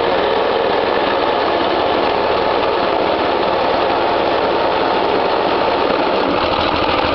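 Small petrol engine of a Qualcast Suffolk Punch cylinder lawnmower running steadily at an even speed.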